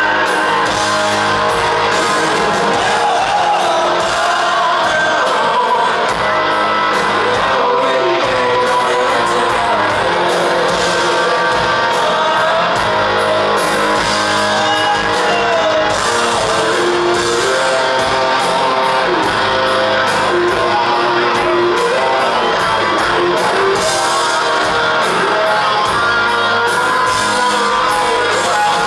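Rock band playing live: distorted electric guitars, bass, drums and vocals, recorded from within the audience in a large concert hall.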